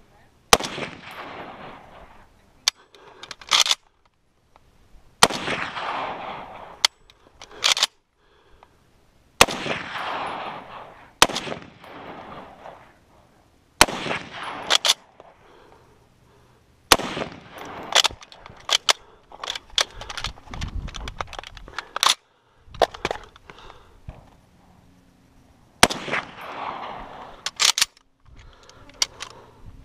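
Semi-automatic rifle firing a long string of shots at steel targets, single shots and quick pairs about a second apart. Each shot is followed by a long echo rolling back off the surrounding hills.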